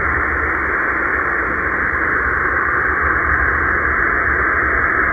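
Shortwave band noise from a Choyong LC90 radio's speaker in upper sideband on the 20-metre amateur band: a steady hiss, dulled by the narrow 2.2 kHz sideband filter, with no station audible on the frequency.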